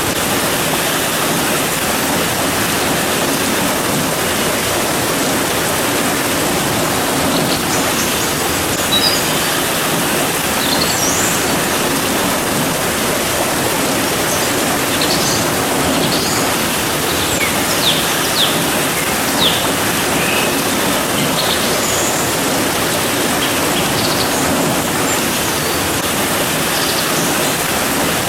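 Steady rain falling, an even hiss throughout, with scattered short high bird chirps, most of them in the middle stretch.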